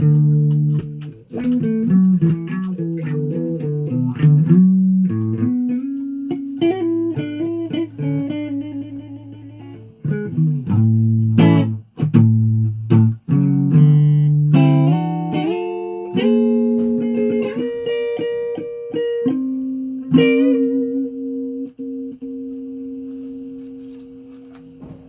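Guitar being played: a run of plucked notes and changing chords, then a held chord that rings out and slowly fades over the last few seconds.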